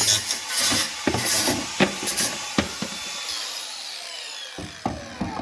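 Grinder with a cutting wheel cutting an air-conditioner radiator, with scraping and knocks against the metal. About three seconds in the wheel is let go and spins down with a falling whine.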